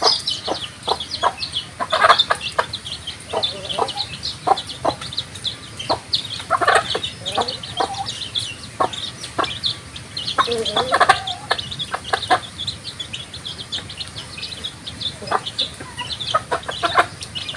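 Chickens clucking in short calls, several at once around a few points, over a constant scatter of quick, high chirps.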